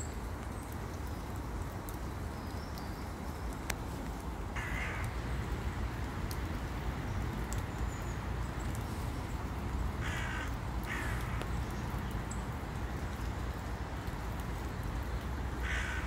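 A bird giving four short calls, one about four seconds in, a pair close together around ten seconds, and one near the end, over a steady low rumble.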